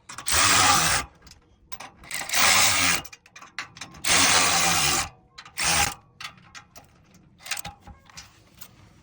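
A power driver running nuts down onto U-bolts to tighten a bracket to a square tube bumper, in four short bursts of about a second each, then a few faint clicks.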